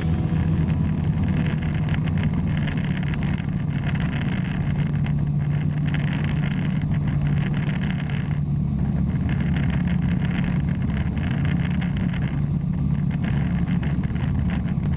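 Bristell light aircraft's piston engine and propeller running steadily in flight, a continuous even hum.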